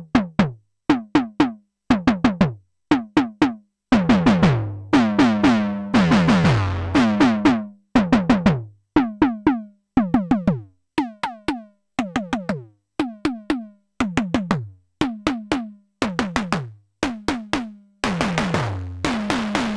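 Noise Engineering Tymp Legio Eurorack drum module in Cat mode playing a rhythmic pattern of synthesized tom hits, each one falling in pitch. The decay and tone change as its knobs are turned: longer ringing tails a few seconds in, then short hits, and noisier, more snare-like hits near the end.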